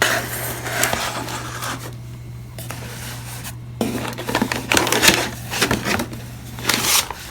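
Foil pouches of freeze-dried camping meals being handled and set down, with irregular crinkling and rustling and a few sharp clicks and knocks.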